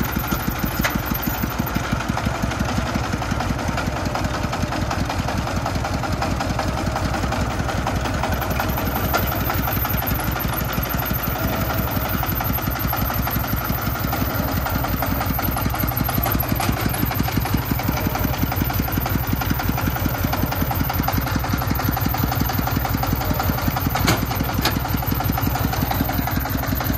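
Single-cylinder diesel engine of a công nông three-wheeled farm dump truck running steadily with a fast, even thudding beat while its loaded dump bed tips up. It runs a little louder from about halfway through.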